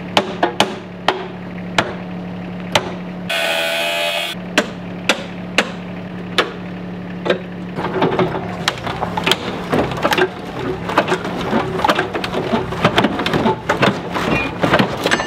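Metal tools working in a car's engine bay: sharp metallic knocks about every half second over a steady machine hum, a brief rasping burst, then from about eight seconds on rapid clicks and crackling over a rougher rumble.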